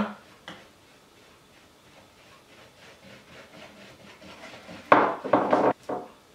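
A hand whisk beating egg yolk into melted chocolate in a mixing bowl: a quiet run of regular strokes, then a louder clatter of several quick knocks of the whisk against the bowl about five seconds in.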